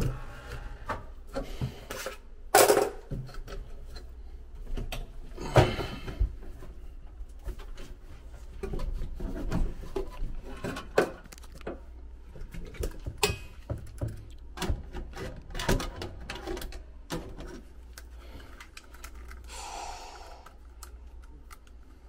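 Irregular clicks, taps and knocks of hands and tools against the sheet-metal cabinet of a Goodman air handler as a blower motor's screws are worked back in, with two louder knocks a few seconds in.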